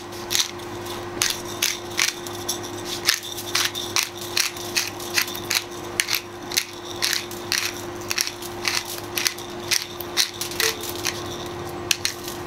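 Hand pepper grinder being twisted, grinding black peppercorns in a run of short, crunchy ratcheting clicks, about two a second. A steady low hum runs underneath.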